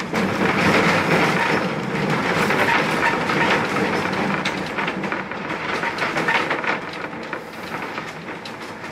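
Vintage-style streetcar rolling along street track, heard on board through an open door: a steady rumble of the car with rattling and clicking of wheels on the rails, loudest in the first few seconds and then easing a little.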